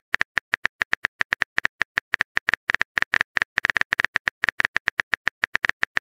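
Phone keyboard typing sound effect: rapid short clicks at an uneven pace of about seven or eight a second, as a message is typed out.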